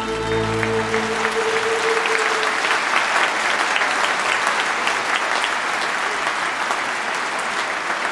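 Audience applause in a concert hall, rising as the orchestra's last held chord fades out in the first couple of seconds, then going on steadily with many hands clapping.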